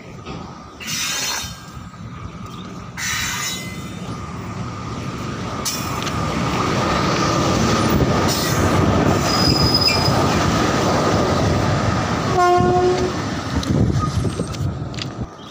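Electric locomotive approaching and passing close by, the rumble of its wheels on the rails building to a peak midway and fading near the end. Two short noisy bursts come about one and three seconds in, a thin high wheel squeal comes as it passes, and a short horn note sounds near the end.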